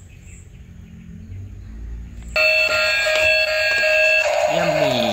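A faint low rumble, then about two and a half seconds in a loud electronic jingle of steady bright tones starts suddenly. Near the end it gives way to a sliding, voice-like sound.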